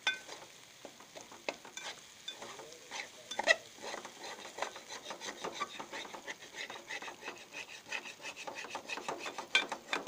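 A metal spatula scrapes and stirs egg and onion around a large aluminium pan in quick, repeated strokes, with a few louder knocks against the metal. The pan bottom is being scraped so the food does not stick.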